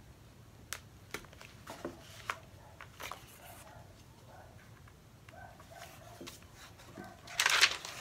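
Soft paper rustles and small handling clicks as waxed thread is drawn through the folded signatures of a hand-sewn book, with a louder rustle of paper pages being lifted and turned near the end.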